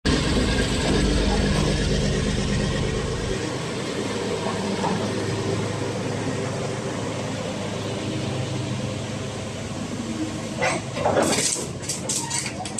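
Caterpillar 336D excavator's diesel engine running steadily, its deepest rumble dropping away about three seconds in. From about ten seconds in, a quick series of metallic clanks and clicks sounds over it.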